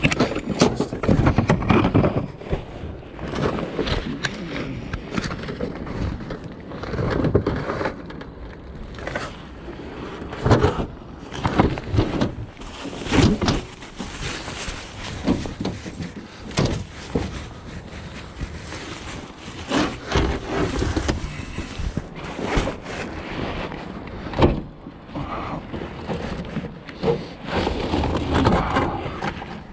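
Discarded junk being handled and sorted through by hand for scrap metal: irregular clatters, knocks and rustling.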